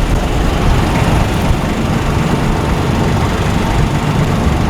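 An engine running steadily, a low rumble with hiss over it.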